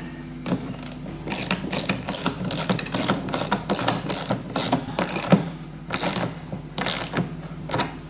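Ratchet clicking as a hose clamp is tightened down onto a flexible blower tube: a run of sharp clicks, about two or three a second, uneven in spacing.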